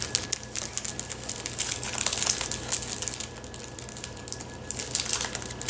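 Clear cellophane wrapper of a mazapan peanut candy crinkling as it is handled and peeled back: a rapid run of small crackles for about three seconds, then again briefly near the end.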